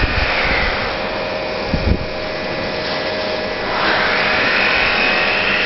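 Automatic popcorn vending machine running with a steady fan-like whir and a constant hum. A higher whine falls away at the start and rises back in about four seconds in, and a couple of low knocks come just before two seconds.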